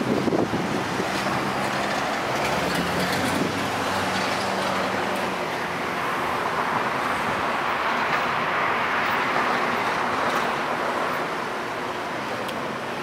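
Steady city street traffic noise, with a vehicle engine hum in the first few seconds and the traffic swelling around the middle.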